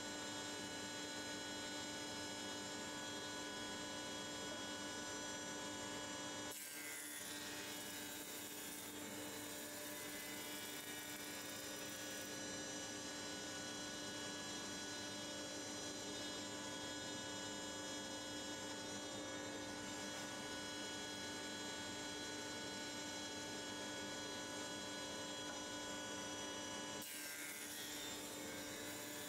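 Planer-thicknesser motor running steadily: a constant hum with several steady tones. The hiss above it changes abruptly about six seconds in and again near the end.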